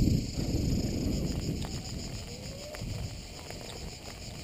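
A steady, high-pitched insect chorus over a low, uneven rumble that is louder in the first second or two.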